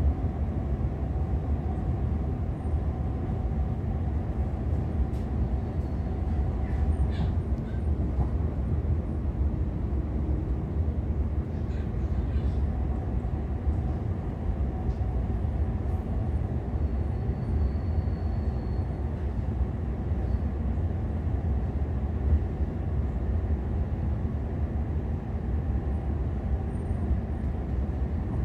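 Steady low rumble of a passenger train running along the line, heard from inside the carriage.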